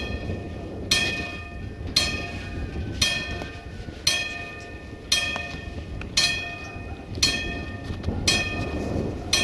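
Level-crossing warning bell striking at a steady pace of about once a second, each stroke ringing out and fading before the next, over a low rumble.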